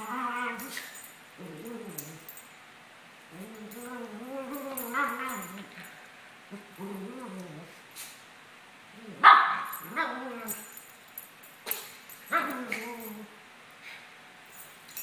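Two Maltese dogs play-fighting, giving a string of drawn-out, wavering play growls of about a second each. Two sharper yips break in, about nine and twelve seconds in, the first the loudest sound.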